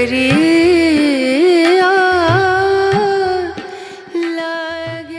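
Background music: a Hindi song, with a long held, gliding melodic line over a light drum beat.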